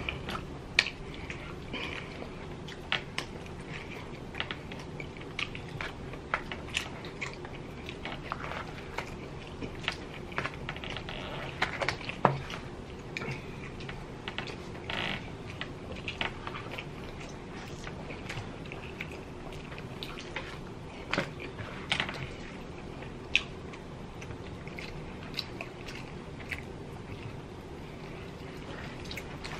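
Two people chewing and tearing apart rotisserie chicken by hand, with scattered short, sharp mouth smacks and clicks over a steady low background hum.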